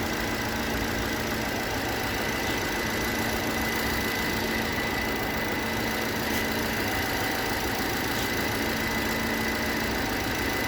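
Renault Duster engine idling steadily, with a thin, constant high-pitched whine over the running. It is checked for an extraneous noise that appeared 1000 km after the timing belt, drive belt and water pump were replaced, which the owner says comes and goes as the engine warms up.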